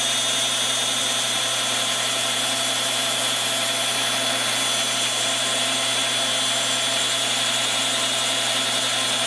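A knockoff rotary tool's abrasive cutoff wheel, used as a tool post grinder, grinding steadily through a hardened steel dowel turning in a lathe collet chuck. It makes an even grinding hiss with a steady high whine.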